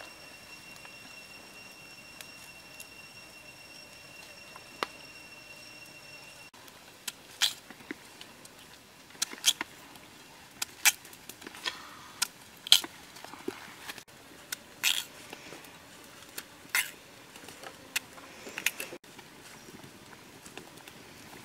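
Knife cutting chunks off a potato held over a pan of boiling broth, the pieces dropping in: about a dozen sharp knocks and splashes at irregular intervals, starting about seven seconds in. Before that only a faint steady background with a thin high whine.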